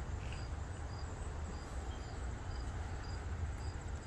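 Crickets chirping outdoors: a short high chirp repeats evenly about twice a second over a steady, higher insect trill, with a steady low rumble underneath.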